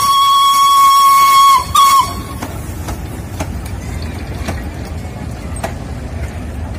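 Steam whistle of the steam locomotive B 5112 blowing a long, steady single-pitched blast that stops about one and a half seconds in, then one short toot. After it, the train's coaches roll past close by with a low rumble and wheels clicking over the rail joints about twice a second.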